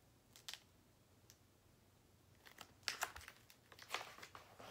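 Faint rustling and crinkling of a picture book's paper pages as it is handled and a page is turned: a couple of brief crisp sounds about half a second in, then a cluster of short rustles from about two and a half seconds on.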